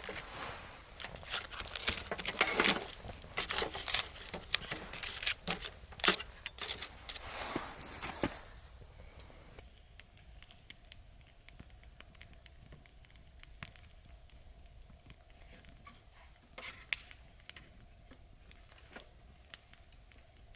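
Food-prep handling sounds: packaging crinkling and tearing with light clinks of cookware and utensils, busy for the first eight seconds or so, then quieter with only a few small clicks over a faint steady hum.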